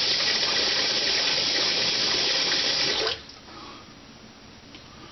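Sink tap running steadily, shut off abruptly about three seconds in. Then faint scraping as a straight razor starts on lathered stubble.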